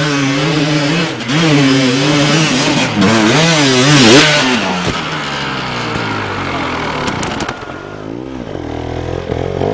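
Enduro dirt bike engines revving up and down in quick bursts as the bikes climb steep ground. Loudest about four seconds in, then quieter in the second half, with one more rise near the end.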